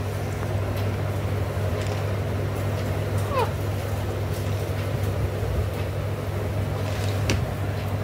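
Steady low machine hum in the background, an even drone that does not change. About three and a half seconds in there is a short falling squeak, and a few light clicks are scattered through.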